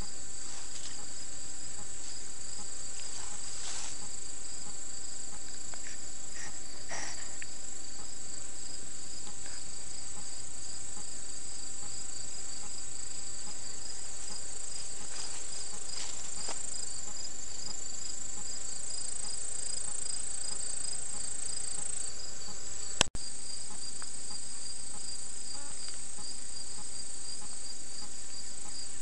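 Steady outdoor chorus of insects trilling, one rapidly pulsing and another higher and continuous. A single sharp click sounds about three quarters of the way through.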